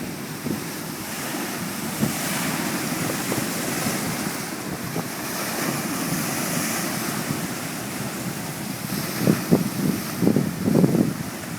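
Sea waves breaking and washing in a steady surging hiss that swells and ebbs. Wind gusts buffet the microphone in short low rumbles toward the end.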